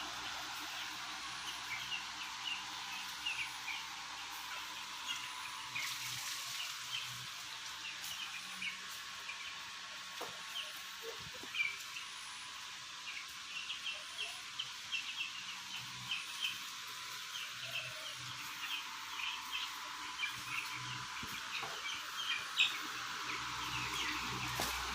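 A shed full of 12-day-old chicks peeping: many short, high chirps scattered throughout, over a steady hiss.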